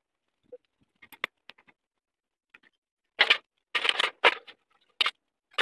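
Metal fuel injection pump parts clicking and clattering against a metal basin of diesel as they are handled and washed: a few light clicks, then from about three seconds in a run of louder short clanks and scrapes.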